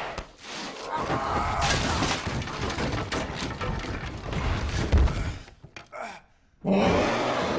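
Violent struggle sound effects: crashing, breaking and heavy thuds, with the loudest blow about five seconds in. After a short lull, a man cries out loudly near the end.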